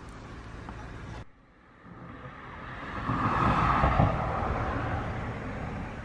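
A road vehicle passing by: a rushing noise that swells over about two seconds, peaks near the middle, and slowly fades. Before it there is a faint steady outdoor background, which cuts off about a second in.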